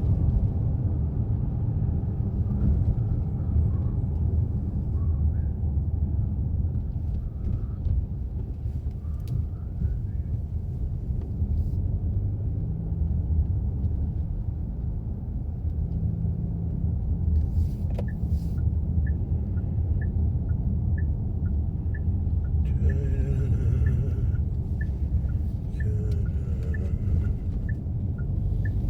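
Steady low rumble of a car's tyres and engine heard from inside the cabin while driving. Past the middle, a regular tick-tock of the turn signal starts and keeps going.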